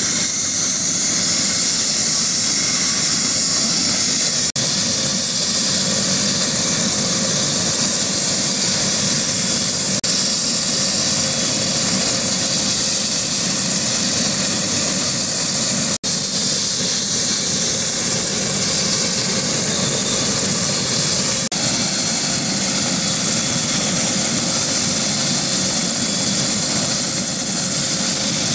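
Bell 407 helicopter's single turboshaft engine running on the ground with the main rotor turning: a steady, loud rush of rotor and turbine noise with a high, even whine over it, broken by a few momentary dropouts.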